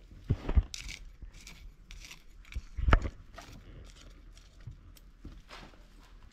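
Machete blade chopping and scraping into dry, stony soil while digging out an elephant foot yam tuber: a few irregular strikes with gritty scrapes between them, the loudest chop about three seconds in.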